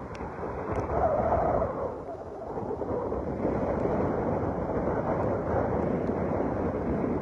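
Gusty tropical-storm wind buffeting the microphone as a steady, rough rush.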